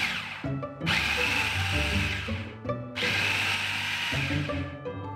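Food processor pulsing cooked butter beans: the motor and blade whir in bursts of about two seconds, each one stopping and winding down before the next, three times.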